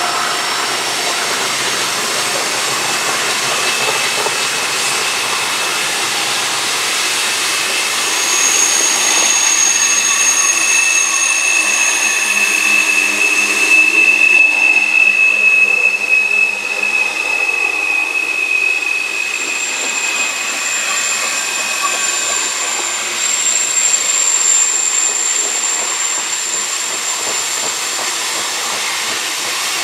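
Freight train cars rolling past on a curve: a steady hiss and rumble of wheels on rail, with high steady squealing tones over it, typical of wheel flanges grinding on curved track. The squeal sets in about a quarter of the way through, peaks in the middle, and comes back higher-pitched later on.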